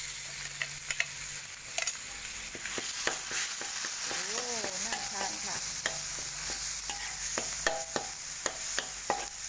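Chili paste frying with a steady sizzle in oil in a wok, while a metal ladle stirs and scrapes it, tapping against the wok with frequent short clicks.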